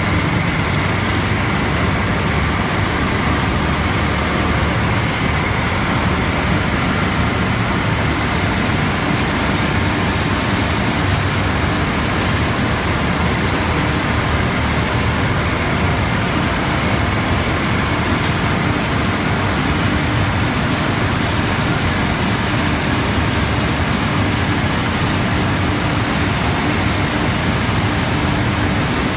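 1300 mm-wide cotton waste recycling line running: its openers, cleaners and carding rolls make a loud, steady machine noise with a faint steady whine.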